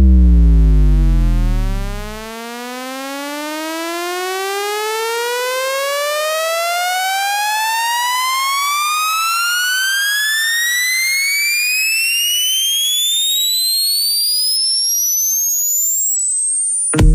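Audio test-tone frequency sweep for a sound-system check: a buzzy tone with many overtones glides down into deep bass over the first two seconds, then climbs steadily in pitch to a high whine. It stops at the very end as a bass-heavy music track cuts in.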